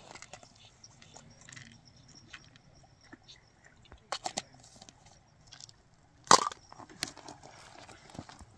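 A few scattered clicks and knocks, with one sharp knock about six seconds in standing out as the loudest, over a faint high steady tone.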